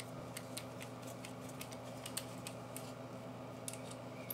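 Faint, irregular small metal clicks and ticks of a T7 Torx screwdriver working the extractor screw out of a Hellcat .380 pistol's slide, with the tool and parts shifting in the hands.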